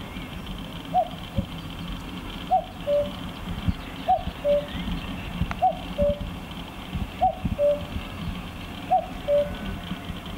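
Male common cuckoo calling its two-note "cu-ckoo", a higher note dropping to a lower held one, repeated about six times at a steady pace of roughly one call every second and a half.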